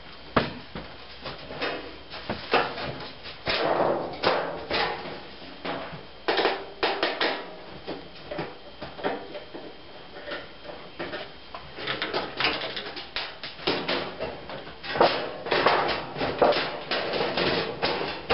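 Irregular clicks, knocks and rattles of an electric range's thin sheet-metal back cover being handled while its screws are taken out, busiest in two stretches with a quieter spell in the middle.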